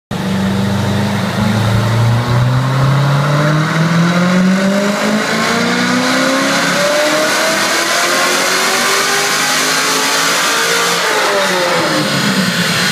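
Chevrolet Corvette's V8 pulling up through the revs under load on a chassis dyno, its pitch climbing steadily for about eleven seconds, then falling away quickly near the end as the throttle is let off.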